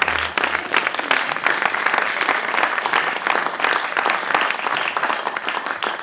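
Audience applauding steadily with dense clapping, as the last low beat of music dies away in the first second.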